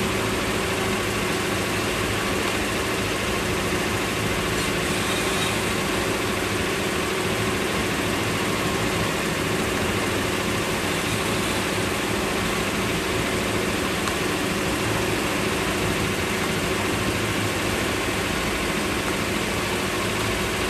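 Boat engine running steadily under way at constant speed, mixed with the rush of water and wind.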